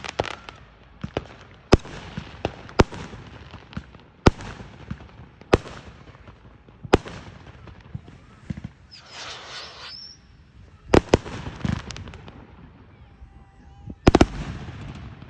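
Fireworks bursting: a series of sharp bangs at irregular spacing, about a dozen, with a double bang about eleven seconds in. A spell of crackling hiss comes about nine seconds in.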